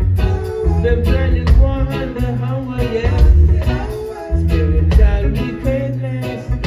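Live reggae band playing, with heavy bass, drums on a steady beat, guitar and sung vocals, heard as a loud audience recording.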